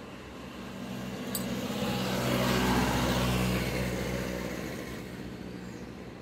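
A motor vehicle passing by: its engine hum grows louder, is loudest around the middle, then fades away. A short click comes about a second in.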